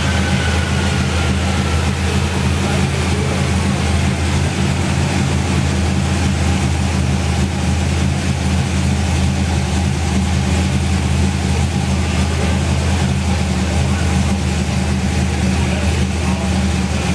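1974 Dodge Dart's engine idling steadily.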